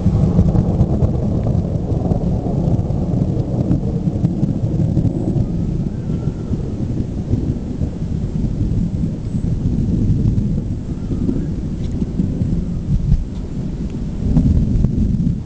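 Thunder from a summer thunderstorm: a long, loud, low rumble that breaks in suddenly and keeps rolling, swelling again a few times, with rain hissing underneath.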